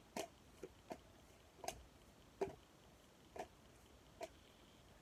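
Faint, irregular clicks and taps of trading cards being handled: about seven soft snaps as cards are flipped and set down.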